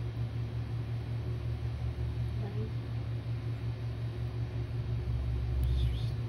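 A steady low hum runs throughout, with a faint short sound about two and a half seconds in and a brief higher hiss just before the end.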